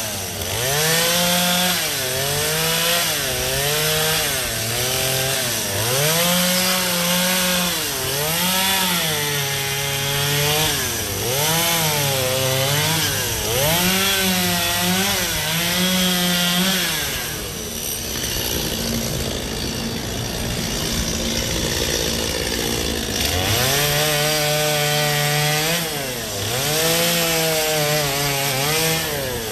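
Two-stroke gas chainsaw cutting ice, its engine revving up and dropping back again and again every second or two. For several seconds past the middle the engine pitch gives way to a rougher, noisier sound before the revving resumes.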